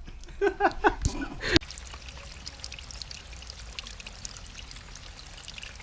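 Running water trickling and pouring steadily, with small splashes and drips.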